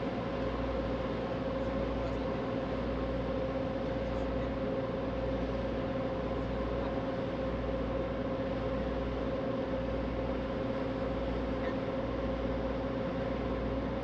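Passenger ferry's engines running steadily under way: a constant drone with a steady hum over a low rumble.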